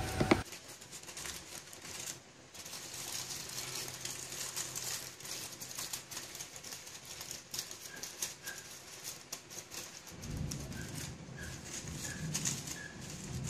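Aluminium foil crinkling and rustling as hands press and crimp it around the rim of a metal cake pan. From about eight seconds in a bird chirps short high notes about twice a second, and from about ten seconds in a pigeon coos low.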